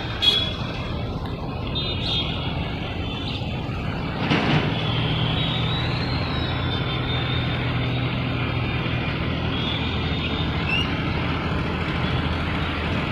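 Railway locomotive running with a steady low hum. A horn note cuts off just after the start, and there is a short loud burst of noise about four seconds in.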